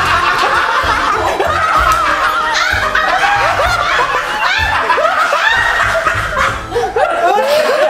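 Men laughing, in repeated choppy bursts of voiced laughter, over background music.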